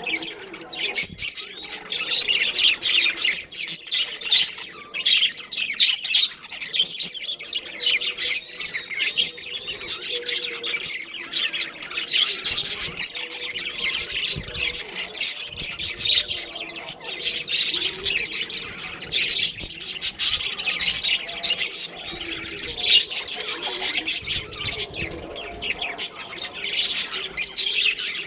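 Budgerigars chattering: many quick, high chirps and squawks overlapping in a continuous stream.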